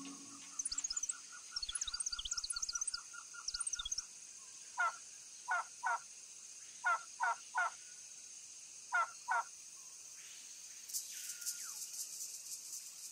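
Rainforest bird calls: a fast trill of short repeated notes with high chirps for about four seconds, then eight short separate calls in ones, twos and threes. A hiss of insects rises near the end.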